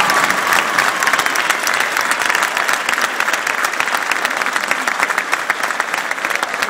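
Crowd applauding: many hands clapping steadily together, slightly quieter toward the end.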